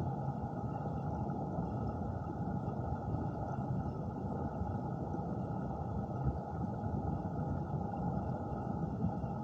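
Flowing water heard underwater: a steady, muffled low rush with almost no high end.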